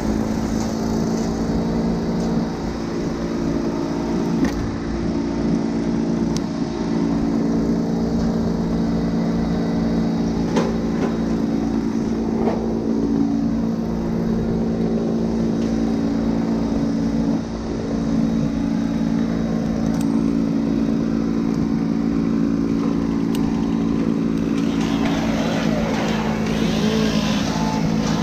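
An engine running steadily at an unchanging speed, with no revving.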